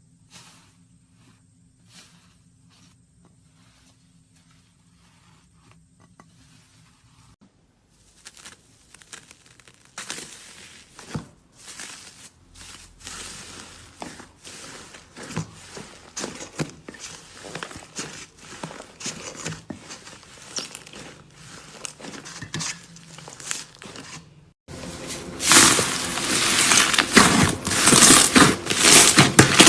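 Slime being squeezed and pressed by hand, giving dense crackling, crinkling clicks. Faint at first, louder from about eight seconds in, and abruptly loudest for the last few seconds.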